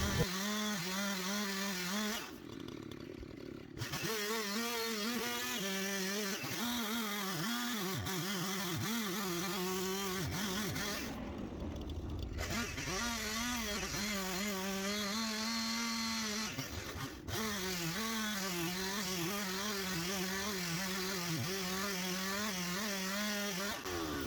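Husqvarna 371 XP two-stroke chainsaw running at high revs while cutting, its pitch wavering as the chain loads up in the wood. The engine note drops away briefly twice, about two seconds in and about eleven seconds in.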